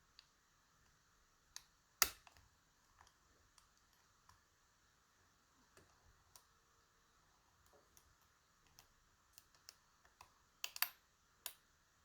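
Faint, scattered clicks and ticks of a lock pick and tension tool working the pins of a DOM RS Sigma pin-tumbler lock, with a sharper click about two seconds in and a quick cluster of clicks near the end.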